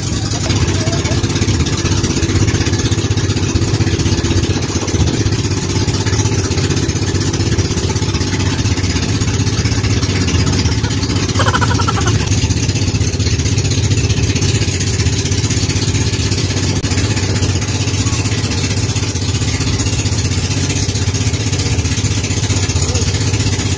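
Pumpboat engine running steadily as the outrigger boat cruises, a constant low hum under a steady rush of wind noise.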